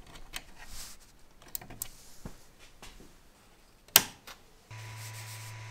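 A microSD card is handled and pushed into a 3D printer's card slot: faint small clicks, then one sharp click about four seconds in. Near the end a steady hum with a fan-like hiss starts abruptly as the printer runs.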